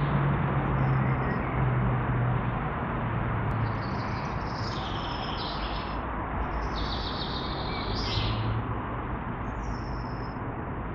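Small songbirds singing in several short bursts of high chirps over a steady rushing noise with a low hum beneath it.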